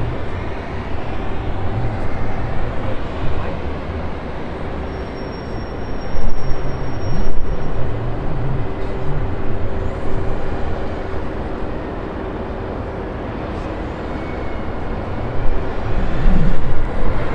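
Jet engines of a large twin-engine airliner running on the runway: a steady broad rush of noise with a low rumble, which swells louder about six seconds in and again near the end.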